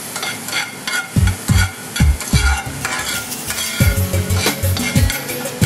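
Sliced mushrooms sizzling in a Skeppshult cast-iron frying pan while a metal spoon stirs them, scraping and clicking against the cast iron. A low thumping beat runs underneath from about a second in.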